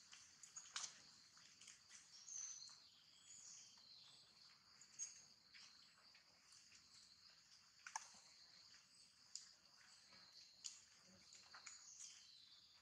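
Near silence: a faint, steady, high-pitched insect drone, with scattered faint clicks and short chirps.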